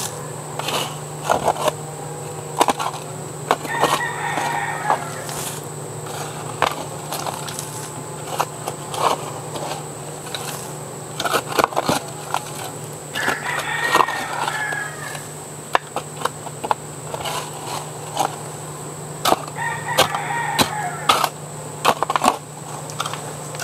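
Small hand digging tool knocking and scraping into sandy soil and roots, with many short strikes. A rooster crows three times in the background, over a steady low hum.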